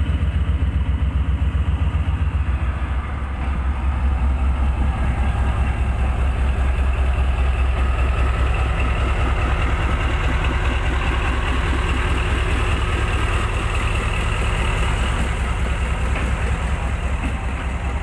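Pakistan Railways diesel-electric locomotives running past at low speed with a deep, even throb, and the noise of the train's wheels on the rails building after a few seconds as the passenger coaches follow.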